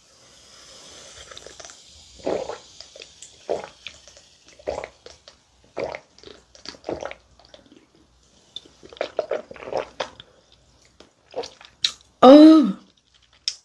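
Fizzing of a canned carbonated soda, then a series of gulping swallows, roughly one a second, as it is drunk from the can. About twelve seconds in comes a loud, falling "ahh" of relief after the drink.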